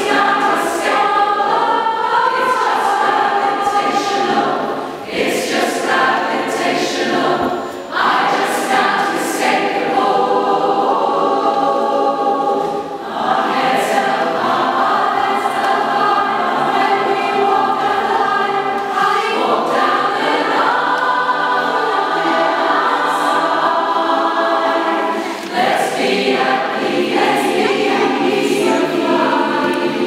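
Community choir, mostly women's voices, singing in a church, in long held phrases with short breaks between them.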